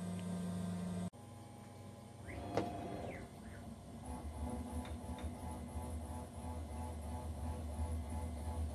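6040 CNC router milling grade 5 titanium (Ti-6Al-4V): the spindle and axis motors make a steady low hum with a faint high whine. The sound changes abruptly about a second in, and there are a couple of short rising-and-falling pitch sweeps near the middle.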